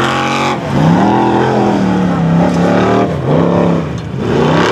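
Four-cylinder turbocharged Formula Offroad buggy engine revving hard on a steep sand hillclimb. The revs rise and drop several times: a dip about half a second in, another near three seconds, and one about four seconds in.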